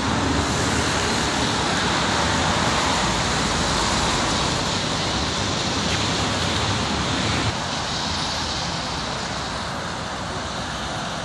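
Steady road traffic noise, an even rushing hiss that eases slightly about seven and a half seconds in.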